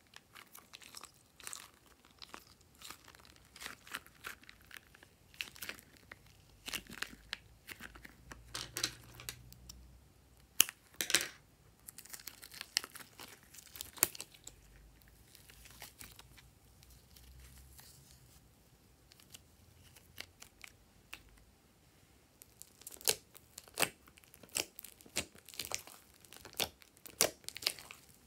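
Sticky slime and slime-covered rubber balloons squeezed by hand: a steady run of wet crackling and small pops. Louder crackles come near the end as the slime is pulled and stretched.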